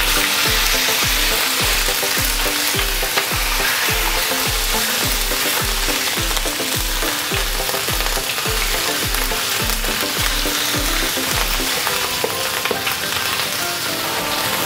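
Chopped garlic and sambal chilli sizzling in hot oil in a wok, stirred with a spatula against the pan.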